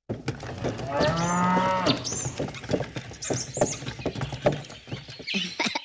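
A cow moos once, a long call about a second in, with birds chirping and scattered short clicks and knocks.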